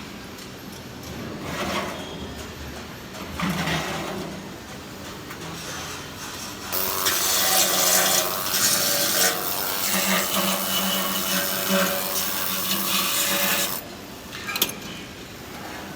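Flux-cored arc welding on stainless steel: the arc crackles and hisses in a long run of about seven seconds, after two brief shorter bursts, over a steady low machine hum.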